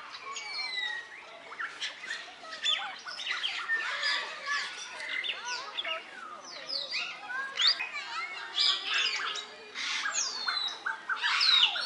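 A dense chorus of many birds calling at once, with short rising and falling whistled notes overlapping one another.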